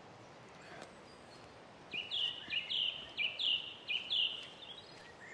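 A woodland songbird singing a quick phrase of paired notes, repeated about five times from about two seconds in, over a faint steady outdoor hiss.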